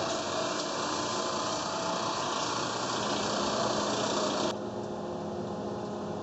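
BTA deep-hole drilling machine running: a steady mechanical noise with several fixed hums. About four and a half seconds in, the hiss in the upper range drops off suddenly, leaving the lower hum.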